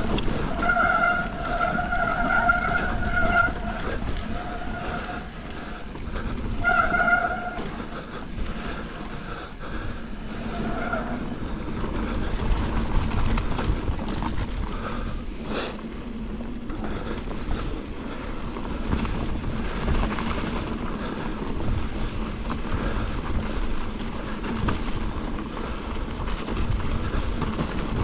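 Mountain bike running down a trail: a steady rumble of tyres and wind on the camera mic. A high squeal comes and goes several times in the first ten seconds or so.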